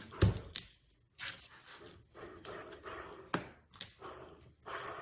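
Soft handling noises and breaths while the parts of a disassembled air-suspension compressor are worked by hand, with a dull knock just after the start and two sharp clicks a little past three seconds in.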